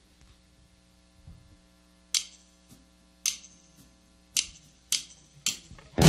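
Drummer's count-in on drumsticks: three sharp clicks about a second apart, then three more twice as fast, over a faint steady amplifier hum. The full band comes in right at the end.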